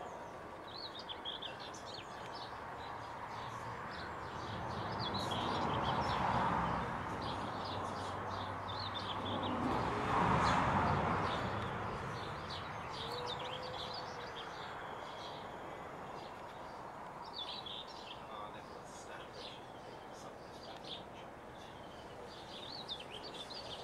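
High, thin twittering of European goldfinches at the nest, in short bursts of a second or two that come several times. A broad rushing noise swells and fades twice, about six and ten seconds in, louder than the twittering.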